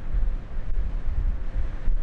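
Wind buffeting the microphone on a small fishing boat under way at sea: an uneven, gusty low rumble over a steady rush of air and water.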